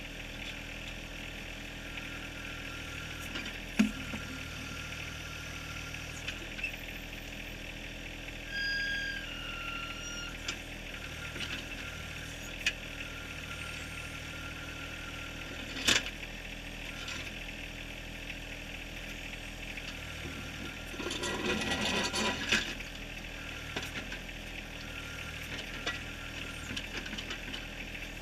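John Deere 1023R's small three-cylinder diesel running steadily as the backhoe digs in rocky ground. The bucket knocks sharply on rock twice, and about 21 s in there is a rattling scrape of rock and gravel.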